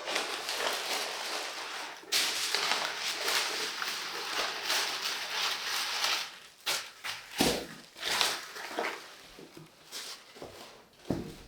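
Packaging being unwrapped: a dense, continuous crinkling rustle that grows louder about two seconds in and lasts to about six seconds, then scattered crackles and a couple of soft thumps as the contents are handled.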